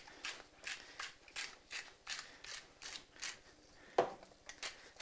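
Hand-twisted salt and pepper mills grinding over a pan, a steady series of crunchy grinding clicks about three a second. A sharper knock comes about four seconds in.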